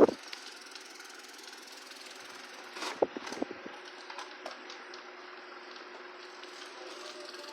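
Mallory Boreal table fan, running without its motor cover or guards and fitted with a Wanke Domestic blade: a steady motor hum, with a short cluster of clicks and knocks about three seconds in.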